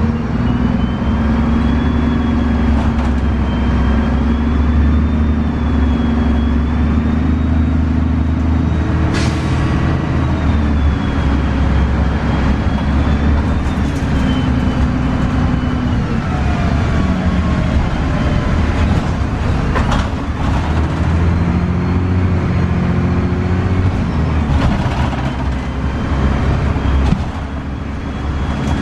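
Inside a 2002 Gillig Advantage transit bus under way: the Cummins ISC inline-six diesel and Voith 864.3E automatic transmission run with a steady low drone whose pitch shifts several times, under a thin high whine that wavers up and down. Two sharp knocks from the bus body stand out, about nine seconds in and again about twenty seconds in.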